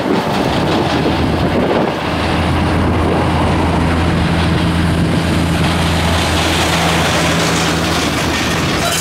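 Airbus A320's IAE V2500 turbofan engines at takeoff power as the jet climbs away: a loud, steady rushing noise, with a low steady hum joining about two seconds in.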